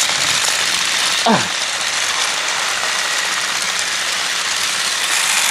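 Several battery-powered TrackMaster toy trains running on plastic track: a steady whirring of their small motors and gears, with the rattle of the wheels on the track. About a second in there is a short sound that drops sharply in pitch.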